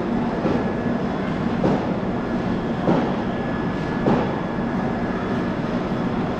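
A passenger train at the station platform making a steady running noise, with a short knock about every second and a quarter.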